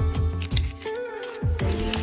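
Electronic background music with deep bass drum hits that drop in pitch and held synth notes.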